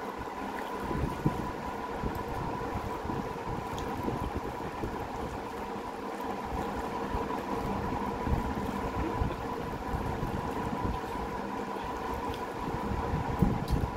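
A steady mechanical hum with a thin high whine runs throughout, over soft irregular sounds of a hand mixing rice on a steel plate and chewing, with a few small clicks near the end.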